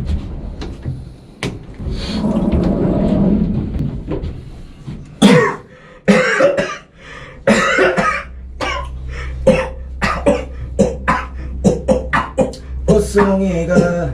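People coughing in rhythm, like a beat: a few spaced coughs at first, then quicker, evenly timed coughs near the end. A low steady hum runs underneath from about halfway.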